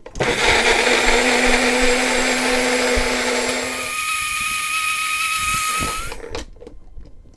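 Magic Bullet personal blender running as it purées avocado with milk and sugar into a shake. About four seconds in, its low hum gives way to a higher whine that rises slightly, and the motor stops about six seconds in.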